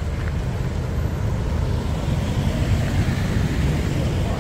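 Steady rumble of road traffic passing on a busy multi-lane road.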